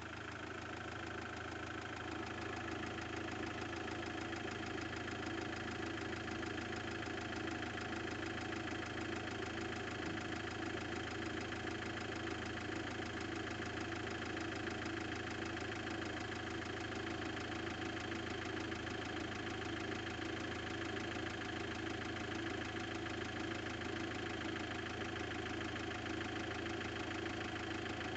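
Iveco F1A four-cylinder diesel idling steadily, with a fast, even tapping from the top of the engine. The owner takes it for a valve knock, most likely a faulty hydraulic lifter, that turns up only once the oil is hot.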